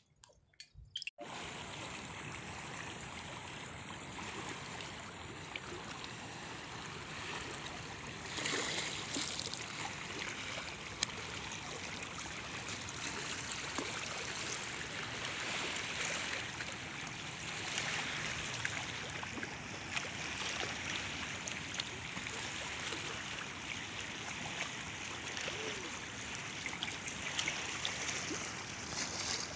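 Steady rush of a fast river current, starting abruptly about a second in.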